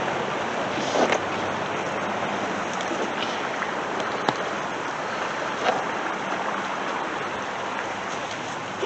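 Stream running high, a steady rushing of water.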